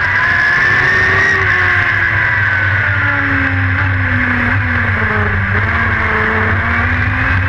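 Dirt-track race car's engine running hard under racing load, heard from inside the cockpit. Its pitch sinks through the middle as the revs come down, then climbs again over the last couple of seconds as it accelerates.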